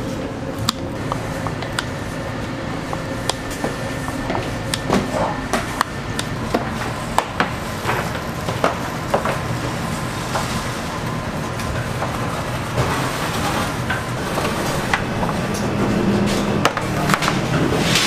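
Bakery kitchen noise: a steady background hum with scattered irregular clicks and clanks of metal loaf pans and tools being handled.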